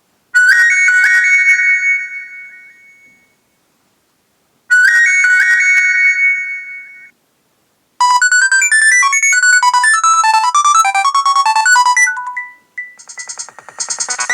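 Nokia 6230 mobile phone tones: a short bright chord that fades out over about two seconds, played twice, then a fast polyphonic ringtone melody of quick notes starting about eight seconds in, turning to rapid pulsing notes near the end.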